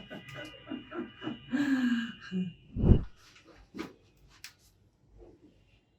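Chiropractic spinal adjustment: the patient gasps and grunts as they are worked on, then a short heavy thump about three seconds in, followed by a couple of sharp clicks.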